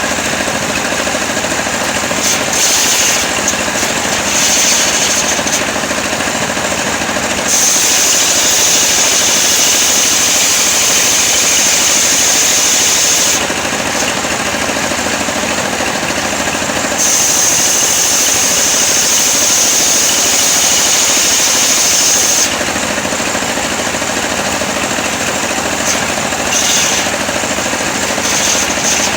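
Engine-driven sawmill running continuously and ripping coconut wood. It has two louder stretches with a strong high whine, starting about 7 and 17 seconds in and lasting five to six seconds each, between quieter stretches of steady running.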